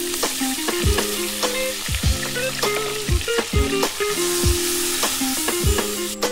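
Melted butter sizzling in a nonstick wok as flour is stirred in with a wooden spoon, cooking a roux for a cheese sauce. The sizzle swells about two-thirds of the way in. Background music with a steady beat plays over it.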